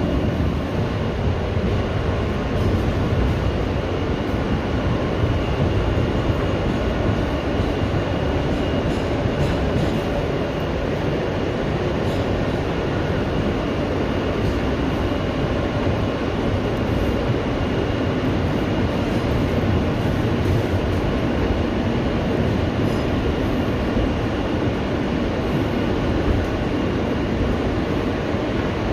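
R160B subway car with Alstom propulsion running between stations: a steady rumble of wheels on rail and running noise, with a faint steady high whine over it.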